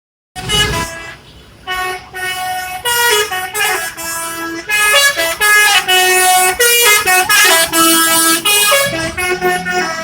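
Basuri 'telolet' multi-tone bus horn playing a quick melody of short tooting notes, several tones sounding together, with a brief lull about a second in.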